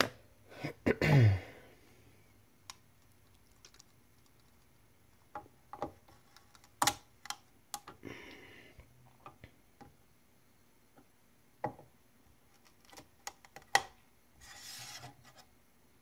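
Steel wrench prying stuck PLA 3D prints off a 3D printer's bed: scattered sharp clicks and taps of metal and plastic, with short scrapes as the parts are worked loose. A short sound falling in pitch about a second in is the loudest moment.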